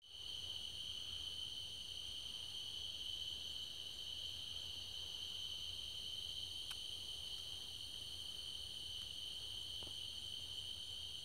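A chorus of crickets trilling in one steady, high, unbroken tone over a faint low hum.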